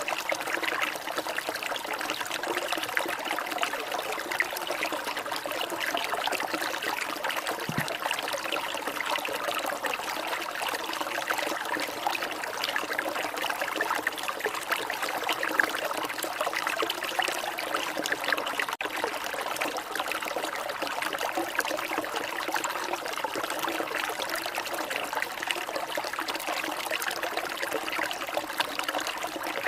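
Water trickling steadily and without break, a continuous light splashing trickle.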